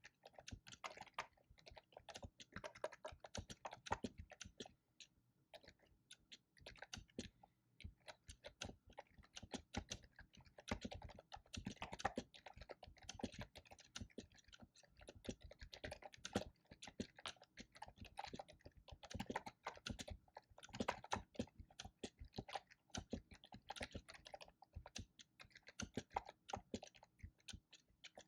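Fast typing on a computer keyboard: quick runs of clicking keystrokes, with a short pause about five seconds in.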